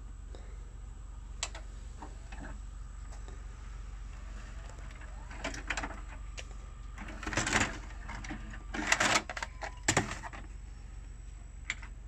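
LG GC480W VHS video cassette recorder stopping and ejecting a tape. A click comes about a second in. Later the tape mechanism runs with a short whirr, and a series of clunks and clatters follows as the cassette is unloaded and pushed out, loudest about seven to ten seconds in.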